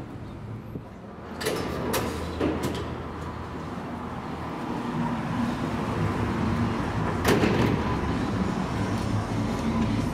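Steady street background with traffic noise, and a few sharp knocks, like a door or metal gate, about one and a half to two and a half seconds in and again near seven seconds.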